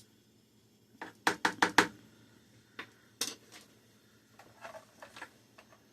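Kitchen utensils and dishes clinking and knocking: a quick run of four or five sharp clacks about a second in, a single one a little past the middle, then a few softer taps.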